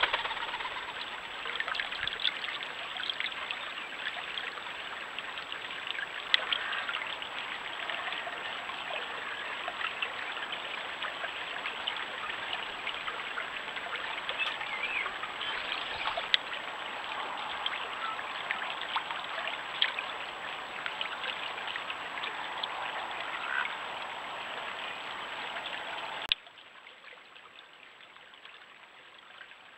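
Shallow stream running over stones: a steady babbling trickle with small splashes. Near the end it drops suddenly to a much fainter hiss.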